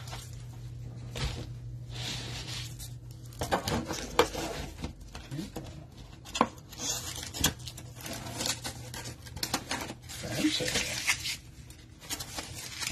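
Stiff plastic top loaders (card holders) clacking and rustling against each other as a stack of them is handled and reloaded into a cardboard box, with several sharp clicks, over a low steady hum.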